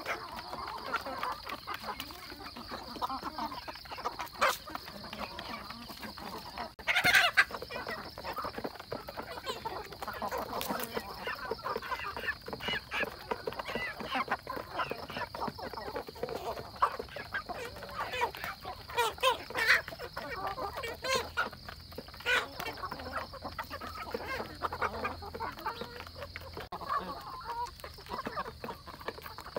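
A flock of hens and roosters clucking as they feed, with many short taps of beaks pecking at feed plates. There is one loud call about seven seconds in.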